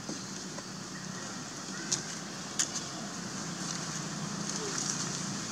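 Steady outdoor background noise, a low hum under a high hiss, with two short clicks about two seconds in.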